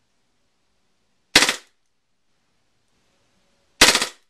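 KWA MP7 gas-blowback airsoft submachine gun firing two short full-auto bursts, each a quick rattle of shots and bolt cycling. The first comes about a second and a half in and the second, slightly longer, near the end.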